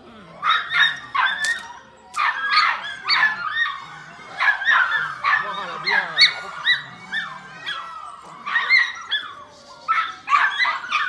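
Seven-week-old Belgian Malinois puppy yapping and whining in a run of short, high-pitched calls, a couple each second, while it bites and tugs on a rag.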